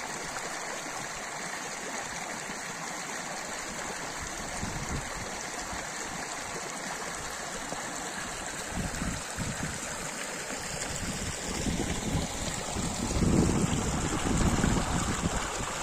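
Shallow mountain stream flowing over stones, a steady rush and babble of water. It grows louder and rougher in the second half, where the water spills over a small step in a white cascade.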